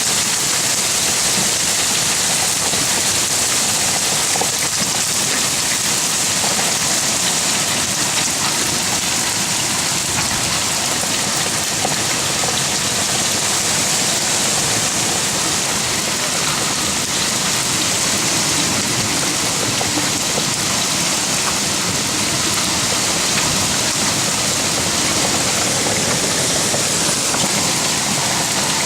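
Hailstorm with heavy rain: hail and rain pelting down in a dense, steady hiss with many fine taps mixed in.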